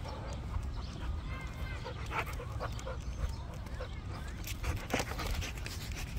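A dog panting as it walks on a leash.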